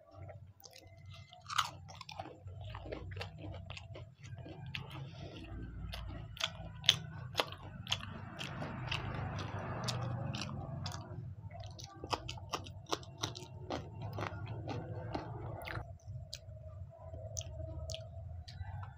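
Close-up chewing and biting of samosa, with many short, sharp crunches of the fried pastry, the loudest about a second and a half in and again around seven seconds.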